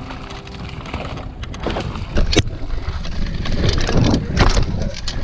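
Mountain bike ridden fast down a dirt downhill track: wind buffets the microphone, the tyres run over dirt and the bike rattles, with sharp knocks about two seconds in and again around four seconds in, as it goes over rough ground and a jump.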